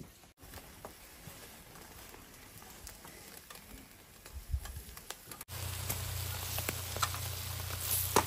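Chicken kebab, tomato and pepper skewers sizzling over charcoal, with scattered crackles from the grill. The sizzle grows louder about five and a half seconds in, with a low hum under it.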